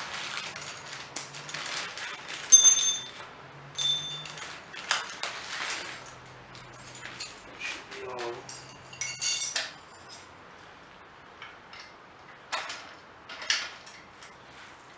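Small steel pins and clips clinking and rattling as they are handled, with two sharp ringing metal clinks about two and a half and four seconds in. Scattered lighter taps and rattles follow, thinning out in the last few seconds.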